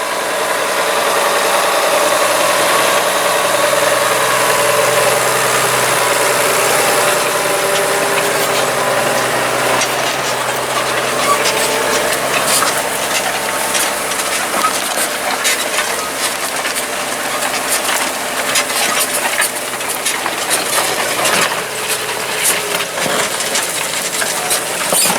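Tractor engine running under load as it pulls a plough, its steady tone strong at first and fading over the second half as it moves away. Scattered clicks and crackles run through the second half.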